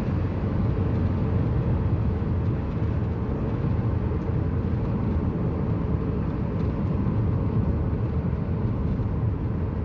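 Steady engine and road noise inside the cabin of a Lada Granta cruising in fifth gear at highway speed. No gearbox whine or hum can be heard: the five-speed manual is running quietly.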